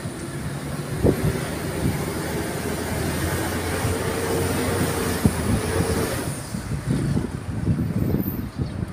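Car engine and tyre noise heard from inside the cabin while driving, a steady hum with a few light knocks.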